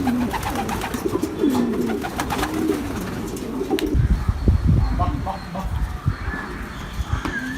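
Homing pigeons cooing, several low coos overlapping for the first few seconds. From about four seconds in, a low rumbling noise and scattered knocks take over.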